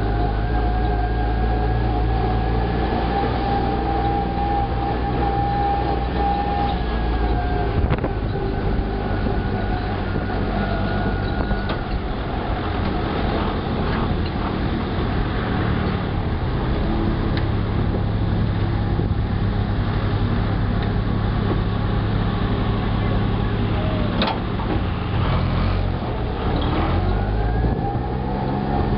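Small Cushman utility vehicle's engine running steadily while driving, with a whine that drifts slightly up and down in pitch and a few brief clicks and rattles.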